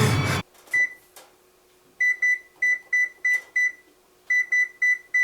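Microwave oven beeping: about a dozen short, high beeps of one pitch in quick, irregular runs, like buttons being pressed on its keypad.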